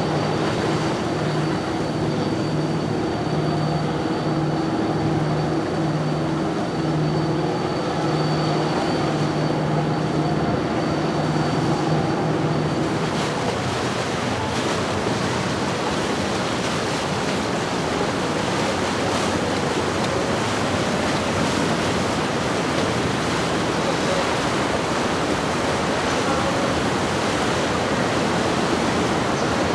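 Boat engines running with a steady, wavering hum and a thin high whine. About 13 seconds in this gives way to a steady rush of churning water and wind as a Ryco Marine 65 sportfishing yacht cruises past.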